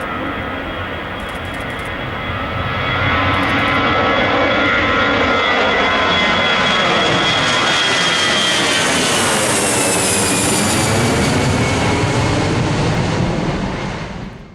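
Airbus A319 jet taking off at full power: a steady, loud engine roar that swells about three seconds in, its whine sliding down in pitch as the jet goes past.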